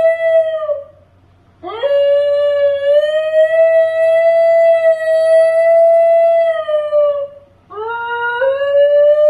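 New Guinea singing dog howling: the breed's distinctive melodious, pure-toned howl. A howl fades out with a downward slide within the first second, a second one swoops up and is held level for about five seconds before sliding down, and a third begins near the end, rising in pitch with a sudden step up.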